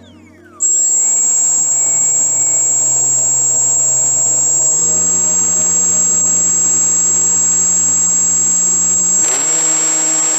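Electric motor and propeller of a HobbyZone AeroScout RC float plane running at high throttle with a high, steady whine. It starts just after a moment's pause, steps up in pitch about halfway through and eases back down near the end. The plane is taxiing on choppy water with its floats dragging, failing to lift off.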